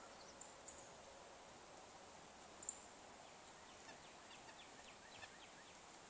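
Faint high-pitched calls of small songbirds over near silence: a few thin chips, then a quick run of short falling notes about four to five seconds in.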